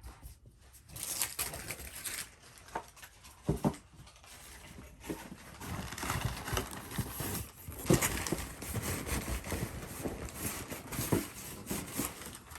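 Packaging being handled and opened: irregular rustling, crinkling and tearing, with a few sharp knocks about 3.5, 8 and 11 seconds in.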